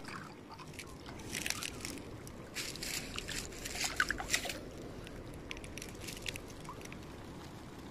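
Faint sloshing and small splashes of pond water as a small fish thrashes at the surface and is scooped into a landing net, with a few slightly louder splashes about four seconds in.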